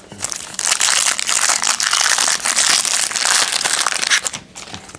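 Foil wrapper of a 2003 Fleer Genuine Insider football card pack crinkling loudly as it is handled and opened. The crackle starts about half a second in and dies away near the end.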